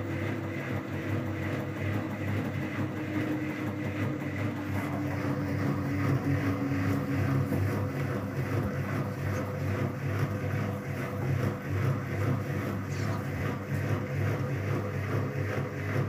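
Whirlpool FCSR90425 front-loading washing machine turning its drum at low speed to spread the laundry evenly, balancing the load before a 1000 rpm spin. It makes a steady motor hum over the tumbling of the wash, with a faint whine that dips a little in pitch in the first few seconds.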